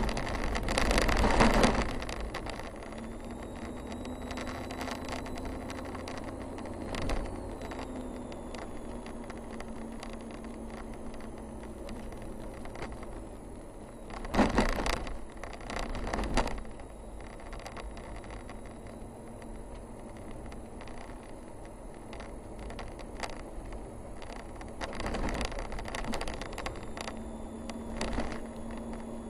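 Car driving slowly, heard from inside the cabin: a steady engine hum and tyre noise, with thumps and rattles as it jolts over bumps in the road. The loudest jolts come about a second in and again halfway through.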